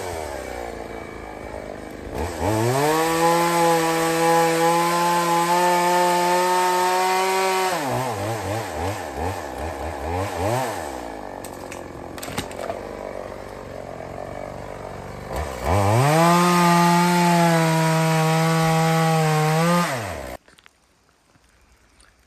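EFCO two-stroke chainsaw revved to full throttle twice, each time held steady for about five seconds, dropping back to an unsteady idle in between. The engine is switched off abruptly near the end.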